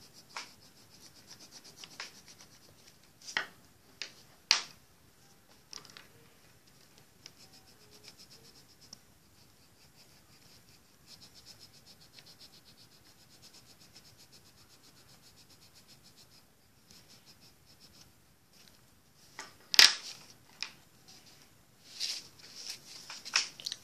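Coloured pencil scratching on paper in rapid back-and-forth strokes as a drawing is shaded in, with a few sharp knocks, the loudest about twenty seconds in and several more near the end.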